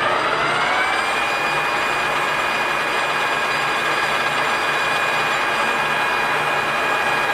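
Timemaster gap bed engine lathe running under power: a gear whine rises in pitch in the first second as the spindle comes up to speed, then holds steady over a low machine hum.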